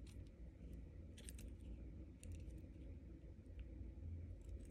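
Faint, scattered small clicks of jewellery pliers and metal findings as a wire loop is closed onto an earring hoop, over a low steady hum.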